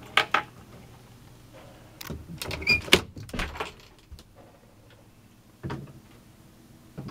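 Knocks and clatter of wooden cabin fittings being handled in a small boat cabin, with a short squeak in the middle and single knocks near the end.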